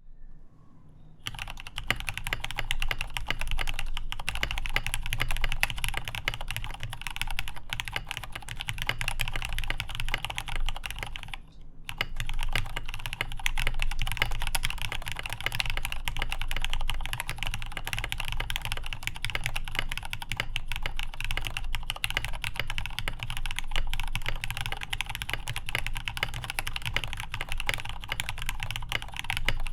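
Typing on a Rama Kara mechanical keyboard with lubed Cherry MX Black Hyperglide linear switches, a polycarbonate plate and Akko ASA keycaps: a steady, fast stream of keystrokes. The typing starts about a second in and breaks off briefly near the middle.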